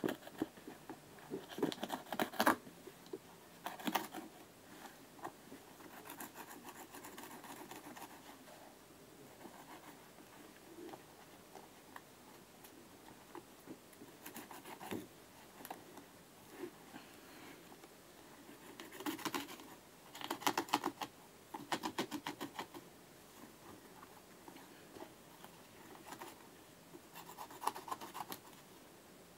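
Blade cutting into and tearing the synthetic upper of an Adidas Predator football boot: scratchy rasping, with several short bursts of rapid crackling clicks as the material gives.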